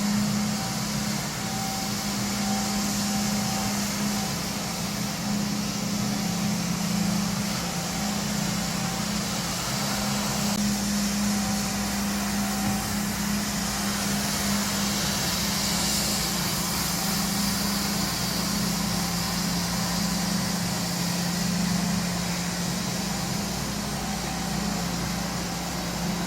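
ICE I20 walk-behind wet floor scrubber running: a steady motor hum with an even hiss above it.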